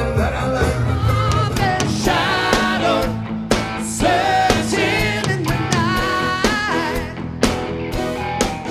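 Upbeat band music with drums, bass, guitar and a singing voice.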